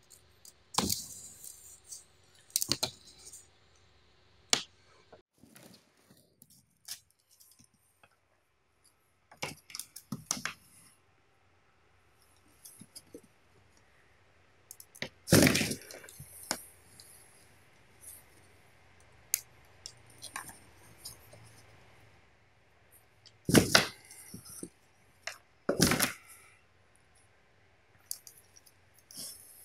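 Cat moving about inside a cardboard box: scattered sharp knocks, taps and scratches on the cardboard, irregular, with a few louder knocks in the second half.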